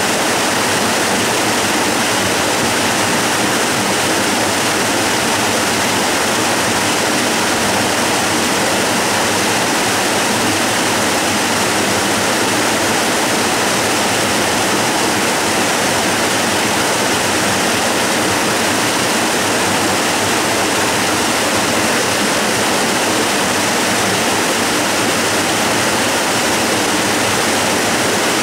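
Waterfall cascade rushing steadily: a dense, even, unbroken water noise spread from low to high pitches, with no change in level.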